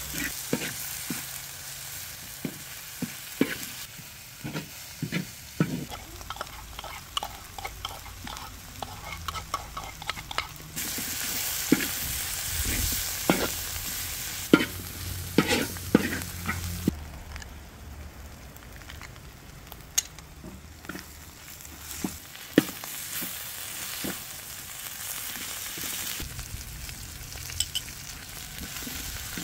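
Chopped greens sizzling as they fry in oil in a large black metal wok, with a metal ladle repeatedly scraping and clinking against the pan as they are stirred. The sizzle grows louder and hissier for a few seconds midway.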